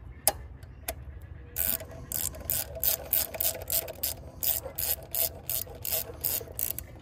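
Hand socket ratchet clicking as it is swung back and forth, running a bolt down into the metal thermostat housing. Two single clicks come first, then a steady run of about three clicks a second from a couple of seconds in.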